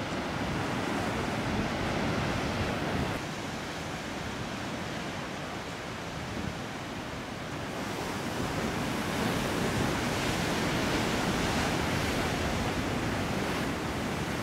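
Sea surf surging and breaking against rocky cliffs: a continuous rush of churning white water that dips a little about three seconds in and swells louder again past the middle.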